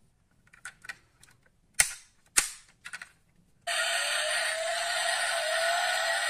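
Sharp clicks and snaps from a die-cast BMW X7 model as its doors and parts are handled, the two loudest about two seconds in. A little past halfway a tinny electronic sound switches on suddenly and keeps going, lacking any deep low end: the model's built-in light-and-sound unit, with its headlights lit.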